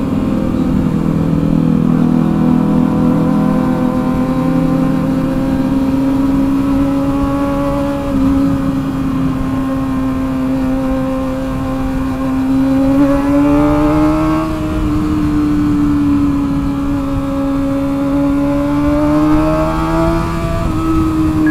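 Motorcycle engine running at steady cruising revs while riding, its pitch rising slightly about two thirds of the way through and again near the end, then easing back each time.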